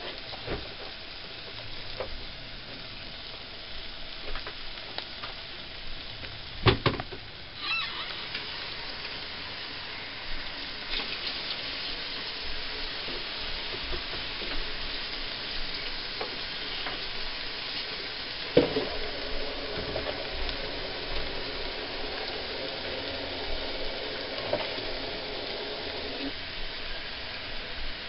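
Banana pancake batter sizzling in butter on a hot stovetop griddle as it is poured, a steady hiss with a couple of sharp knocks, the loudest about seven seconds in.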